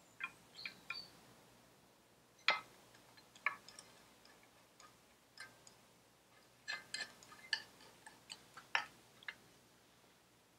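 Screwdriver working a screw into a Vespa PX engine's carburettor box: faint, irregular small metallic clicks and ticks, the sharpest about two and a half seconds in and a cluster near the end.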